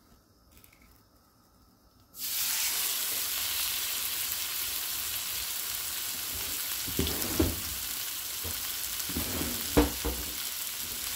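Chuck roast steak sizzling in hot oil in a frying pan, a steady frying hiss that starts suddenly about two seconds in after a near-silent moment, and swells briefly twice in the second half.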